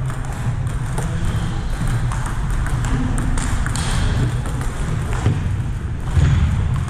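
Table tennis ball clicking off paddles and table in a rally, over a steady low hum in a large hall.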